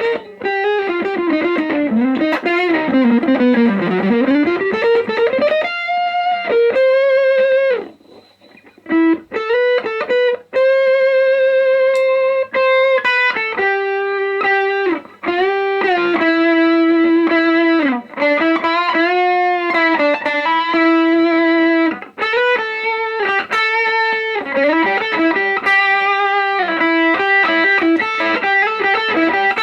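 Les Paul electric guitar played through a CE Pedals FET Dream effects pedal: a single-note lead line with string bends, vibrato and long sustained notes. It opens with a fast run that sweeps down and back up, and there is a short break about eight seconds in.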